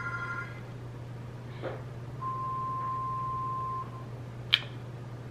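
A metal spoon clinks once, sharply, against a bowl near the end. A steady low hum runs underneath, and in the middle a single steady electronic beep lasts about a second and a half.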